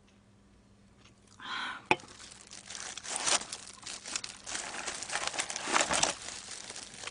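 Disposable plastic gloves crinkling and rustling as a hand picks through a cardboard box of fried chicken and potato wedges, after a light knock about two seconds in.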